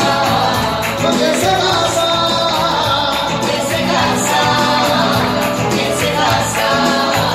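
Live singing of a Latin pop song over backing music with a steady beat and a repeating bass line.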